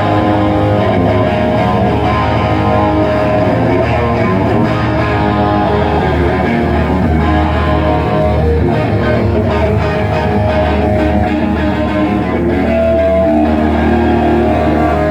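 A live rock band playing, with electric guitar and bass guitar to the fore, at a steady loud level.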